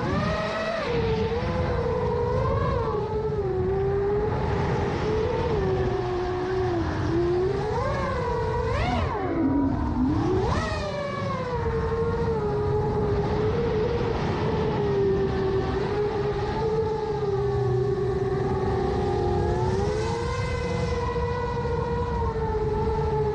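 Brushless motors and propellers of a 7-inch FPV quadcopter with 2806-size motors whining in flight, the pitch wandering up and down with the throttle. About nine seconds in the pitch drops sharply and then climbs back as the throttle is punched again.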